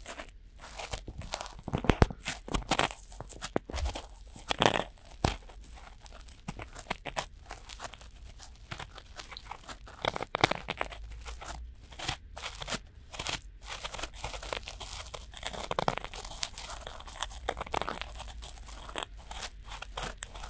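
Cotton swabs rubbing and scraping inside both silicone ears of a binaural microphone at once: an irregular close-up crackly scratching with a few louder scrapes.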